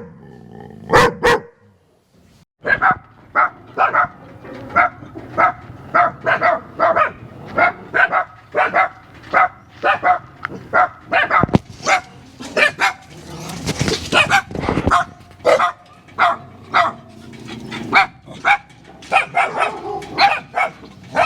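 A dog barking: two barks, a short pause, then a long steady run of barks at about two a second.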